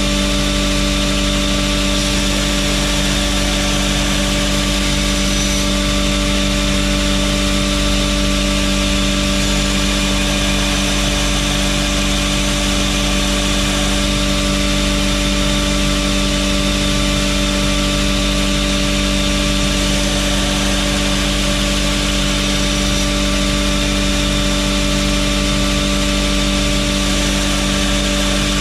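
Belt grinder running steadily, its motor humming under the hiss of the abrasive belt, as a steel knife blade's bevels are ground.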